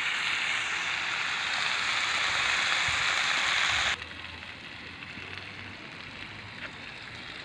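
Sliced green and red peppers sizzling steadily in a frying pan with very little oil over a wood fire. About four seconds in the sizzle drops suddenly to a much fainter level.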